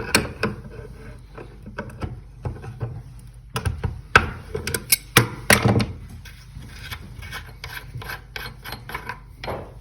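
Pliers gripping and turning a faucet cartridge's bonnet nut to unscrew it: irregular clicks, scrapes and grinding of metal on metal, with a few louder knocks about four to six seconds in.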